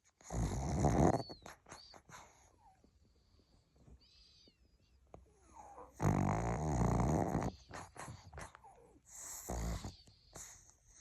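Pug snoring loudly in its sleep, three big snores: one of about a second near the start, a longer one of about a second and a half past the middle, and a short one near the end, with quieter breathing between. This is the heavy snoring common in pugs because of their short noses.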